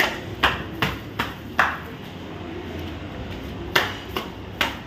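Footsteps climbing stairs: sharp slapping steps about two or three a second, a run of five, a pause of about two seconds, then three more near the end.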